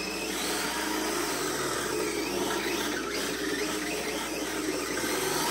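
Electric 1/10-scale RC drift car doing donuts on concrete: its motor and drivetrain whirring steadily while the hard drift tyres slide, the pitch wavering a little as it circles.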